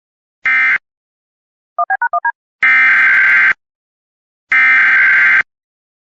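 Emergency Alert System SAME data bursts: the last short end-of-message burst just under a second in, then a quick run of six two-pitch keypad-like beeps about two seconds in, then two one-second header bursts, a second apart, opening the next alert.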